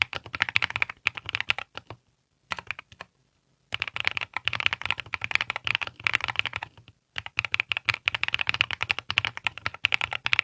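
Mechanical keyboard switches, MZ Y1 Zhou (PA66 top housing, PBT bottom housing), being typed on quickly as a dense run of keystroke clacks. The typing stops briefly about two seconds in, again about three seconds in, and once more about seven seconds in.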